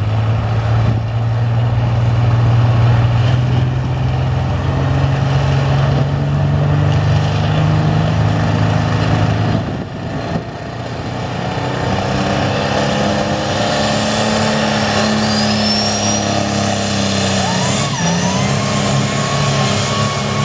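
Diesel engine of a modified light limited class pulling tractor running hard, holding a steady note at first, then climbing in pitch under load as it pulls the sled, with a thin high whistle rising above it. The note dips briefly and recovers near the end.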